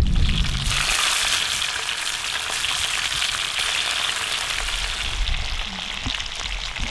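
White bass fillets frying in hot oil in a cast-iron skillet: a steady, dense sizzle that sets in within the first second as the fish goes into the grease.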